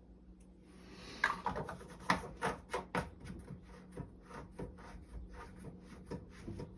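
Small parts being handled: a quick run of light clicks and knocks starting about a second in, busiest for the next two seconds, then thinning to scattered taps.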